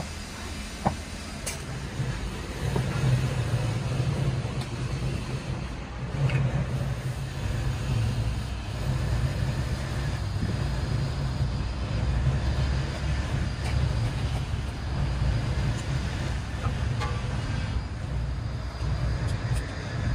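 Steady low mechanical rumble, like a motor or machinery running, getting louder about two seconds in, with a couple of light knocks near the start.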